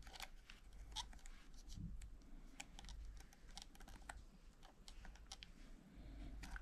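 Faint, irregular light clicks and taps from handling the packaged folding knife.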